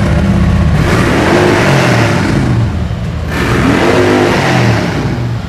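Harley-Davidson Road King's V-twin engine revved twice by hand, each rev climbing in pitch and dropping back toward idle.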